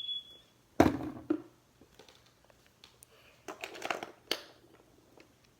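Plastic markers being handled and set into a plastic toy box: a few sharp clicks and knocks, then a short run of tapping and rattling about three and a half seconds in.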